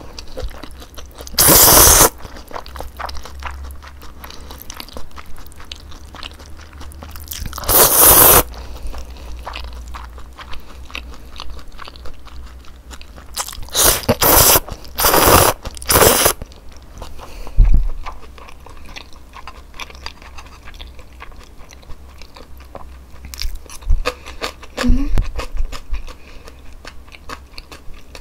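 A person eating thin wheat noodles with chopsticks: about five loud slurps as strands are drawn into the mouth, with wet chewing and small clicks in between.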